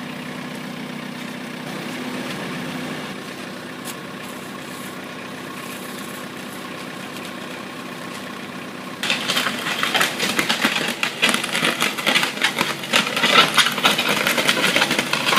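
Schäffer 2445 mini loader's diesel engine idling steadily. About nine seconds in, it gives way suddenly to a louder, busy rattling clatter as the loader drives over rough ground.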